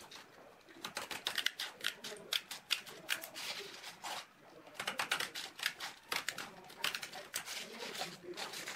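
Scissors snipping through a cloth-backed aluminium-oxide sanding belt: quick crisp snips in several runs with short pauses between them.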